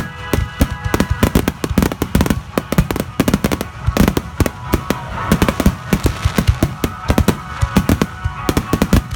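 Aerial fireworks barrage: shells bursting in quick succession, several sharp bangs a second, with music playing underneath.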